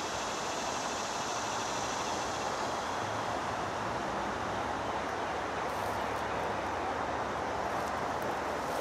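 Steady rumble and hiss of distant road traffic, running on without a break.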